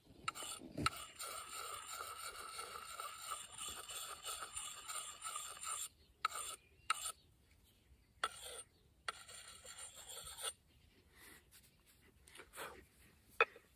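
Hand-held puck sharpening stone rubbed against a steel hatchet edge, a steady gritty rasp for about the first six seconds. Then come a few separate short strokes, another brief run of grinding, and a few lighter strokes near the end.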